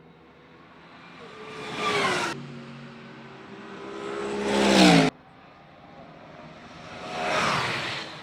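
Race cars passing one at a time, three in a row, each engine note rising to a peak and then dropping in pitch as the car goes by. The middle pass is the loudest and cuts off suddenly.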